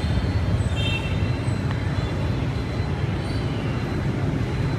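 Steady low rumble of outdoor street background noise, picked up by a phone microphone, with no distinct event standing out.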